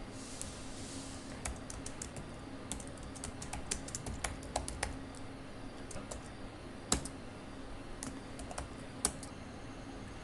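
Typing on a computer keyboard: irregular key clicks with short pauses between runs, the sharpest strokes about seven and nine seconds in, over a faint steady hum.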